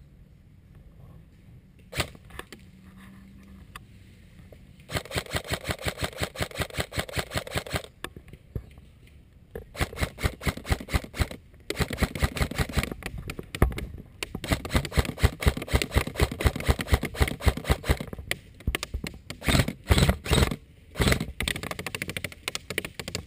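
Airsoft electric gun firing on full auto in several long bursts of rapid shots, with short pauses between them. A single shot comes before the first burst.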